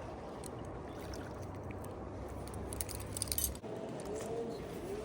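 Light metallic jingling and clinking for about a second in the middle, over a steady low background rush that cuts off suddenly just after.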